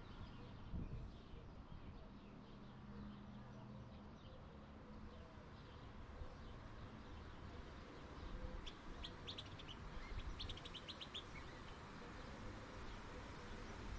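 Faint steady background hiss with a bird chirping: two quick runs of rapid, high chirps a little past halfway through.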